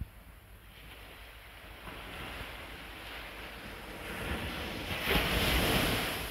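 Small ocean waves breaking and washing up a sandy beach. The wash builds from about two seconds in to a wave crashing loudest about five seconds in, then eases.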